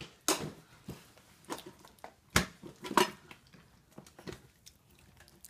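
Scattered knocks and light clatter of kitchen things being handled on a counter, with three louder knocks among them.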